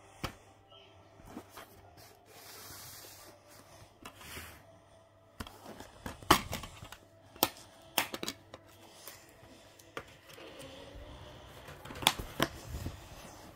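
Handling noise: soft rustling of bedding and a DVD case, with a handful of sharp clicks and knocks, the loudest coming about six seconds in and again about twelve seconds in.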